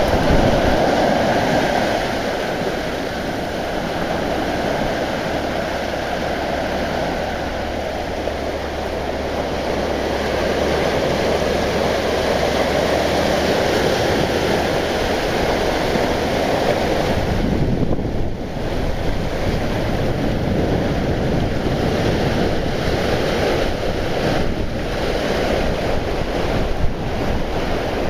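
Sea surf breaking and washing up on a sandy beach, a steady rushing wash of waves, with wind rumbling on the microphone.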